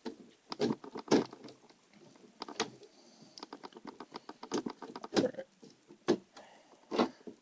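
Laptop parts being handled and fitted during reassembly: irregular clicks and taps of plastic and metal components, some sharper and louder than others.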